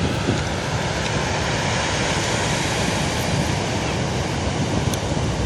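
Heavy surf breaking in a steady roar of churning water, with wind buffeting the phone's microphone.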